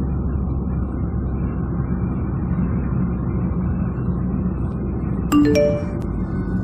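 Dark, steady low rumbling drone of a horror-style intro soundtrack. About five seconds in, three short chime notes rise quickly in pitch.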